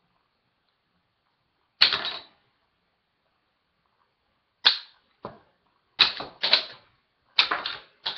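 Lego-brick lever-action pistol firing. One sharp plastic snap comes about two seconds in, then a quick string of plastic clacks and snaps from about four and a half seconds on as the gun is worked and fired again.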